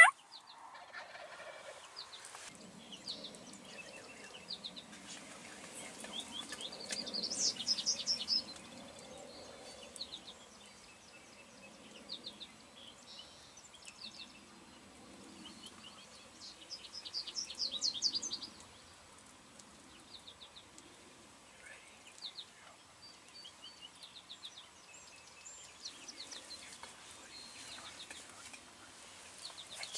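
Wild turkeys gobbling: two clear rapid rattling gobbles, about seven and seventeen seconds in, with a few fainter ones near the end.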